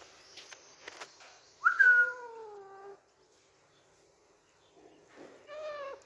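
Young Alexandrine parakeet calling twice. About a second and a half in comes a loud drawn-out call that jumps up sharply and then slides down in pitch. Near the end comes a shorter, softer call.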